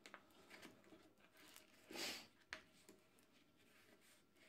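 Faint rustling and crackling of a backing sheet being peeled back off a vinyl decal stuck to a metal toolbox lid, with a short louder rustle about two seconds in and a sharp click just after.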